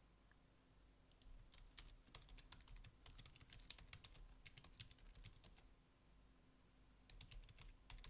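Faint typing on a computer keyboard: a quick run of keystrokes, a pause of about a second, then more keystrokes near the end.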